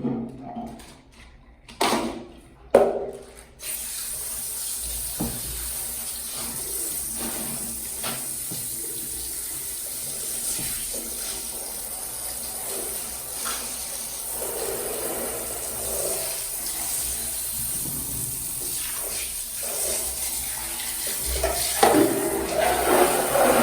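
Water running from a kitchen tap into a sink. It starts about four seconds in, after a few sharp knocks, and gets louder and busier near the end.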